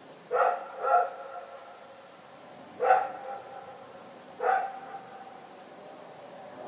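A dog barking four times: two quick barks, then two single barks spaced about a second and a half apart, each trailing off in an echo.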